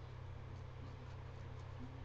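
Faint short scratchy strokes of a nail file rubbing on fingernails, over a steady low electrical hum.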